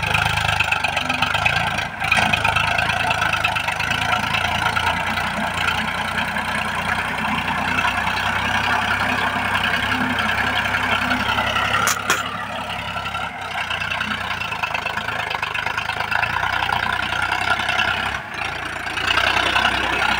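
Powertrac Euro 50 tractor's diesel engine running steadily under load, driving a rotavator that churns through dry stubble soil. The sound dips briefly twice.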